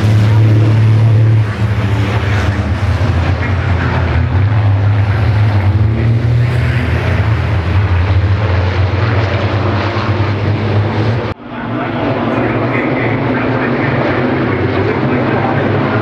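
Racing trucks' diesel engines running at speed, a loud steady low drone. It drops out for an instant about eleven seconds in and comes back slightly higher in pitch.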